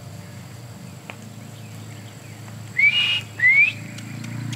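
A person whistling two short rising notes about half a second apart, over a faint steady low hum.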